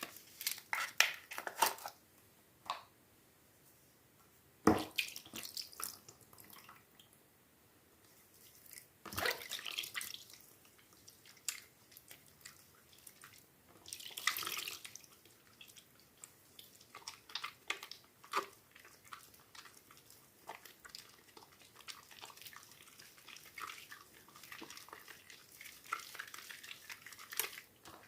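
Soaked, softened bar soap being worked by hand close to the microphone: wet squelches and crackles in irregular bursts, with a couple of sharp snaps.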